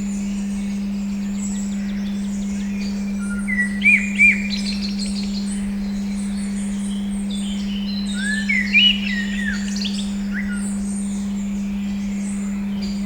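A steady 200 Hz tone sounding unbroken under recorded birdsong. Several birds chirp and whistle throughout, with louder whistled calls about four seconds in and again around nine seconds.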